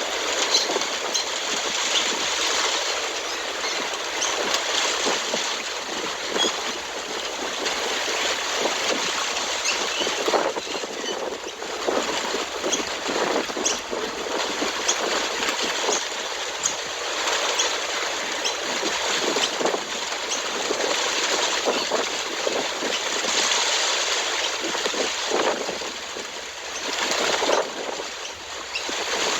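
Heavy wind-driven rain: a steady rush of falling water, dotted throughout with many short, sharp hits of drops.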